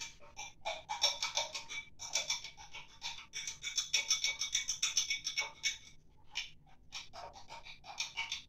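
A spatula stirring liquid in a glass beaker, scraping and tapping against the glass in rapid, repeated strokes, with a brief pause about six seconds in.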